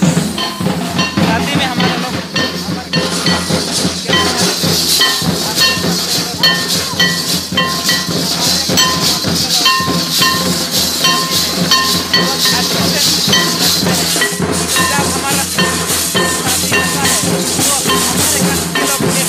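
A troupe of drummers beating large metal barrel drums with sticks in a fast, dense rhythm for a folk dance, with a short high note repeating over the beat.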